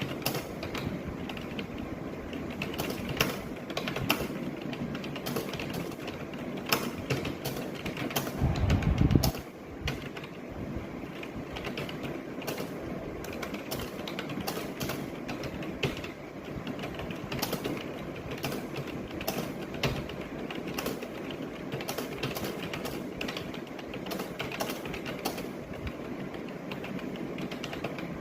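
Computer keyboard being typed on rapidly and continuously, a dense run of keystroke clicks with louder single clacks mixed in, during a timed typing test. About nine seconds in, a brief low rumbling thump stands out as the loudest sound.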